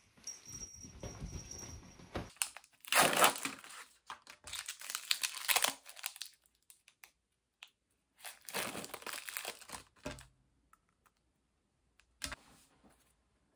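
Plastic-and-paper sterile wrapper of a disposable syringe crinkling and tearing as it is peeled open by hand, in four separate bursts. The first burst is the loudest.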